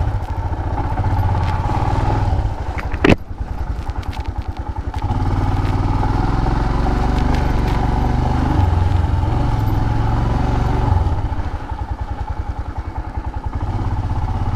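Motorcycle engine running as the bike rides slowly along a dirt track, its low beat easing off and picking up again twice, with a single sharp knock about three seconds in.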